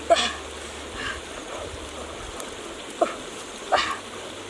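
Short, sharp animal yelps: one right at the start, then two more close together about three seconds in.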